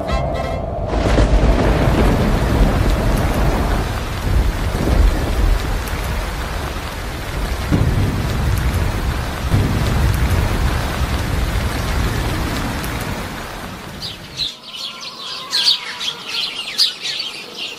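Steady heavy rain with low rolling thunder. About fourteen and a half seconds in, the rain and thunder stop and birds chirp.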